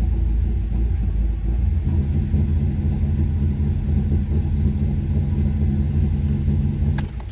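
2004 Jaguar XKR's 4.2-litre supercharged V8 idling roughly and missing, as if running on only some of its eight cylinders. The owner suspects an intake duct that has come off the throttle body. A sharp click comes right at the end.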